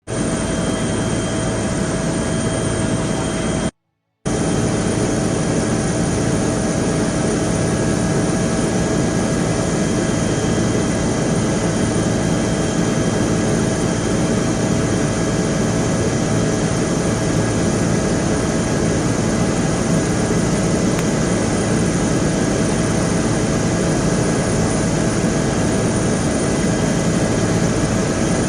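Steady aircraft engine noise with a constant whine running through it, cutting out briefly about four seconds in.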